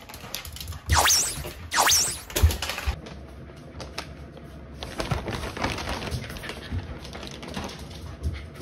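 Shiba Inu puppy begging excitedly: two short high-pitched cries about one and two seconds in, with low thumps as it lands from jumping. Then dry kibble clicks and rattles as it is poured from the bag.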